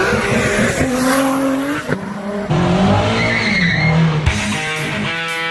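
Car engine revving with tyres squealing, the pitch rising and falling; rock music with guitar takes over about four seconds in.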